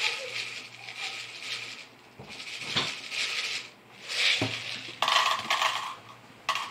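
Steel shot pellets poured and dropped by hand into a plastic cup on a digital scale, rattling and clinking. A run of fine rattle comes first, then single clinks, then louder clatters about five seconds in and again near the end.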